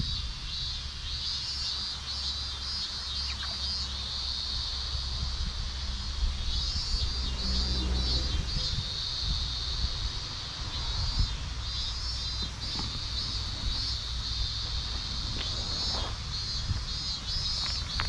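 Summer insects shrilling steadily, swelling and pulsing, with a second, higher insect chirping in quick regular beats. Wind rumbles on the microphone underneath.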